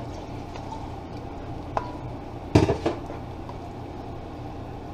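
A spoon stirring a thick cream sauce in a stainless steel skillet. It taps the pan once about two seconds in, then clatters against it in a quick run of knocks just after, over a steady low hum.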